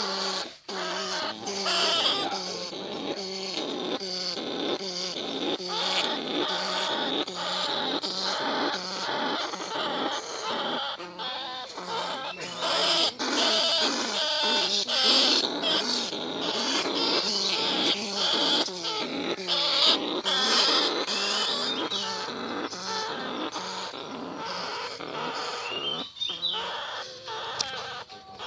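Bandicoot rats and other field rats calling without pause, many squeaky, chattering calls overlapping, with short clicks among them.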